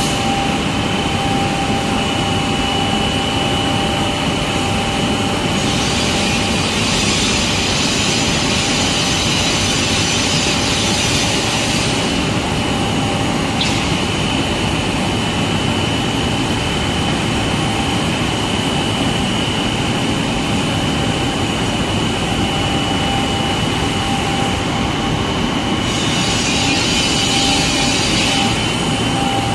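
Glass-factory machinery of an automatic glass loading and cutting line running, a steady mechanical drone with a constant high whine. A louder hiss comes in for several seconds about six seconds in, and again briefly near the end.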